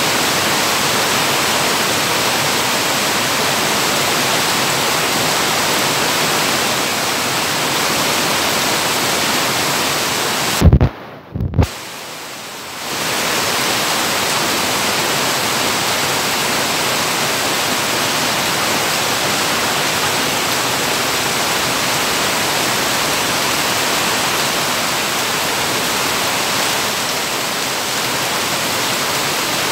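Heavy downpour: a dense, steady hiss of rain. About eleven seconds in there are two brief thumps, and then the rain sound drops away for a second or two before returning.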